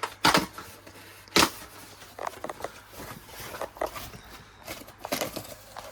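Paper and cardboard packaging being torn and rustled as a parcel is unwrapped: two sharp rips in the first second and a half, then softer scattered rustling.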